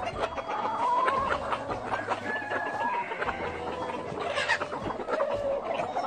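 A flock of Cheonggye chickens clucking and murmuring together, a steady overlapping chatter of short calls, some drawn out and gliding in pitch.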